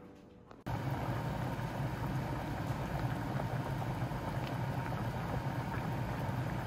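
Chickpeas in water at a rolling boil in a stainless steel saucepan: a steady bubbling rumble that cuts in abruptly under a second in.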